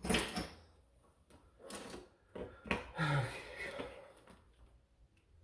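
Handling noises: a string of knocks and rattles as small objects are moved about on a surface, dying away about four seconds in.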